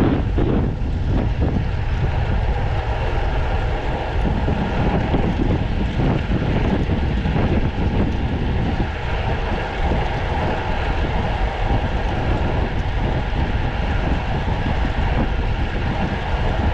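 Steady rush of wind over the camera microphone with a low rumble, as heard riding a road bike at speed.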